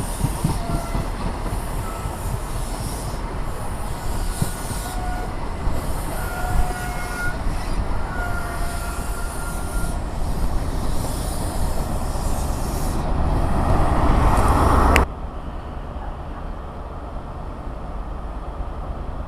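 A train running through the station, a loud rumble with short high wheel squeals, growing louder until it cuts off suddenly about fifteen seconds in, leaving quieter station background.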